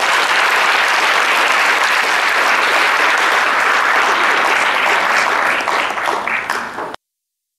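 Large audience applauding, a dense steady clapping that cuts off suddenly about seven seconds in.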